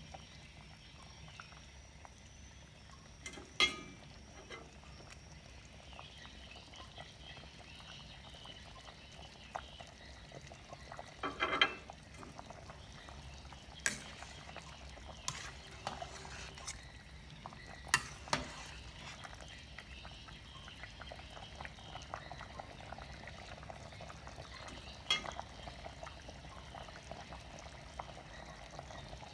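Metal ladle stirring a stainless steel pot of simmering chicken stew: a steady low bubbling with a handful of sharp clinks as the ladle knocks the side of the pot.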